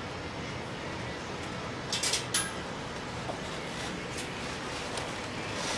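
Steady outdoor background noise of a marina, with a brief clatter of a few sharp knocks about two seconds in.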